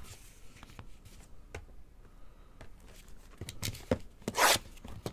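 Trading cards in plastic sleeves and a shrink-wrapped card box being handled on a table: light taps and clicks, then a short scrape of plastic rubbing near the end.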